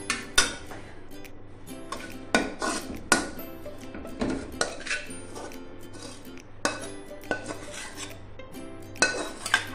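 Metal slotted spatula scraping and knocking against an aluminium frying pan, a run of sharp, irregular clinks as cooked chicken pieces are pushed out of the pan into a glass bowl.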